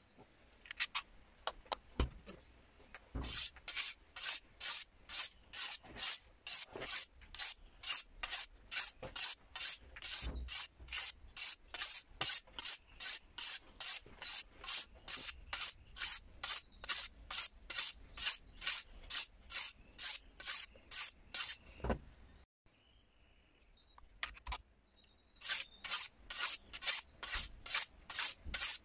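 Steel sickle blade being sharpened by hand, a grey block drawn along its curved edge in quick, even strokes at two or three a second. The strokes stop for about three seconds near the end, then start again.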